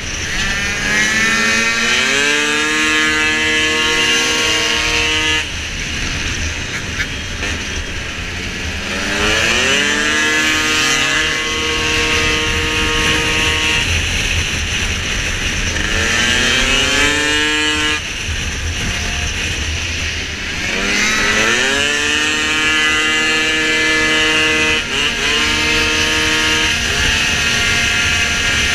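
Two-stroke engine of a Piaggio SKR racing scooter at full throttle. Four times the revs climb quickly and then hold at a steady pitch, dropping away abruptly each time the throttle is closed.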